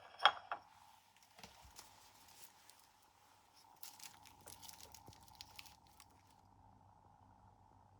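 Light crinkling and crackling with scattered small clicks, as of something being handled, beginning with a sharp click and dying away about six seconds in, over a faint steady hum.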